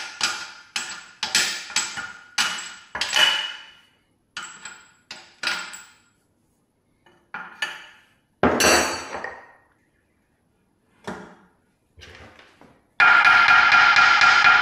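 A hammer striking metal: a quick run of blows, about two or three a second, each ringing briefly, then a few single, spaced-out blows. Near the end a loud, steady noise with a fixed tone starts abruptly.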